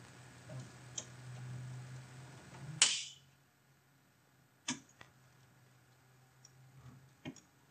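Clicks and knocks from a camcorder tripod as a leg is adjusted to level the camera: one sharp snap about three seconds in, a second near five seconds, and a few softer ticks, over a faint low hum.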